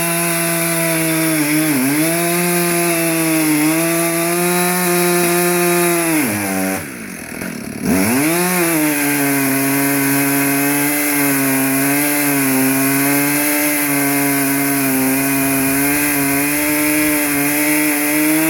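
Two-stroke chainsaw cutting the front (face) cut into a large albizia trunk, running steadily under load. About seven seconds in, the engine briefly drops off and then revs back up into the cut.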